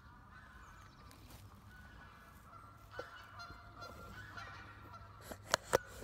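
Birds calling repeatedly in short honking calls, with two sharp clicks close together near the end as the loudest sounds.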